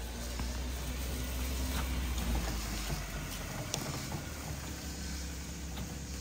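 Small kei mini truck engine running at low speed as the truck creeps downhill, a steady low hum that swells slightly about two seconds in, with a few light clicks.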